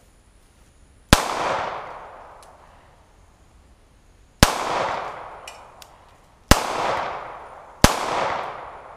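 Four shots from a Zastava M88A 9mm pistol at an unhurried, uneven pace, each a sharp crack followed by a long rolling echo that fades over a second or two.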